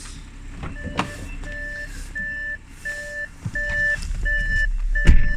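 Electronic warning beeps repeating about one and a half times a second, like a vehicle's reversing alarm or parking sensor, starting about a second in over a low vehicle engine rumble. A sharp knock comes just before the end.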